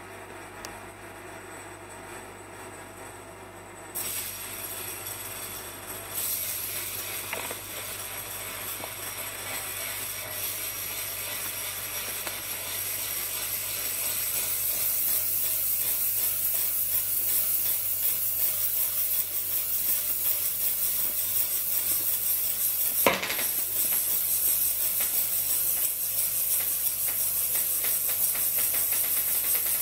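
Metal spinning top running on a glass mirror: a steady, rattly high-pitched whir that starts about four seconds in and grows gradually louder, with one sudden sharp sound a few seconds from the end.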